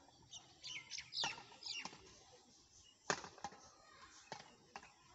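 Badminton rackets striking a shuttlecock back and forth in a doubles rally: a series of sharp hits, the loudest about three seconds in. Quick swishing sounds come in the first two seconds.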